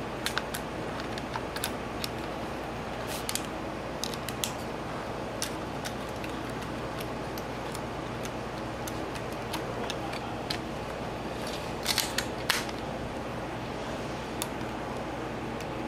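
Scattered small clicks and taps of fingers and tweezers handling a white unibody MacBook's internal parts and connectors during reassembly, with a cluster of louder clicks about twelve seconds in, over a steady low hum.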